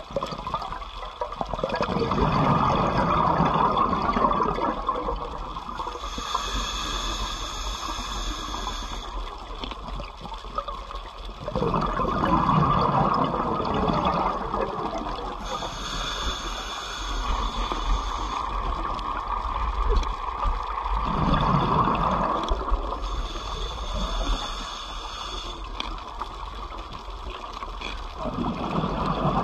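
Scuba diver's breathing through a regulator, heard underwater: a rush of exhaled bubbles about every ten seconds, with a higher hiss of inhalation in between.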